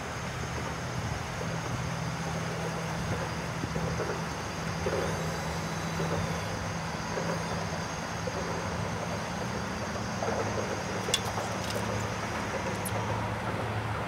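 A boat motor running at a steady speed: a low, even hum with a faint high whine above it, and a sharp light tick about eleven seconds in.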